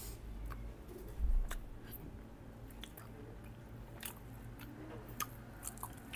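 Close-up mouth sounds of someone chewing and biting pork: scattered small wet clicks and smacks. A single louder low thump comes about a second in.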